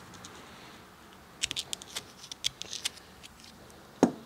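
A quick run of small, sharp metallic clicks and ticks as a steel pick works a seal ring onto a hydraulic cylinder piston, followed about four seconds in by a single louder, duller knock.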